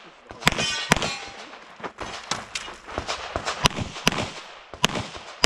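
A string of about a dozen pistol shots fired at an uneven pace, in quick pairs and runs with short pauses between. A brief metallic ringing follows some of the shots.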